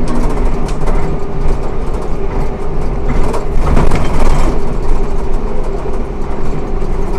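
Ikarus 280T articulated trolleybus under way: a steady electric hum from its traction equipment over road and body noise, swelling for a moment about four seconds in.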